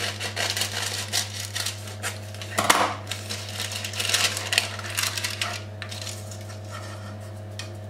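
Baking paper rustling and crinkling as it is handled and laid into a round aluminium cake pan, with small clicks throughout and the loudest crinkle about three seconds in. A steady low hum runs underneath.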